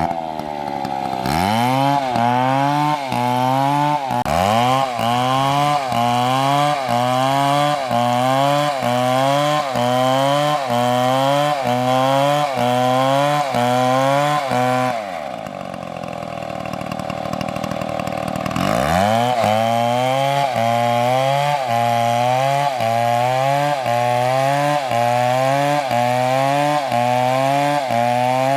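Big two-stroke chainsaw cutting into a tree trunk at full throttle, its engine pitch sagging under load and picking up again in a regular rhythm a little under once a second as the bar is worked through the cut. About halfway through it drops to idle for some four seconds, then revs back up and cuts on with the same rhythm.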